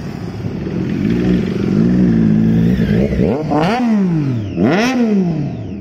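Sport motorcycle engine running steadily, then revved hard twice past the three-second mark, each rev climbing steeply and dropping back.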